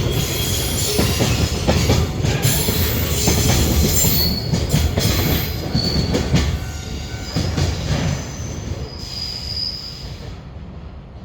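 Container freight train rolling past, with wheels clattering over the rail joints and a few short, high wheel squeals. The sound fades over the last few seconds.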